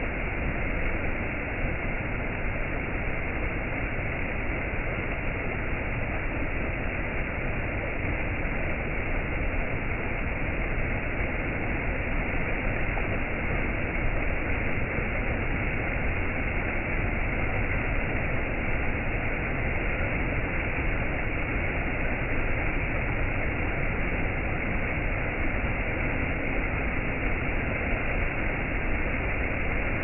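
Shallow stream water rushing over small stepped rock cascades: a steady, even wash with no change in level.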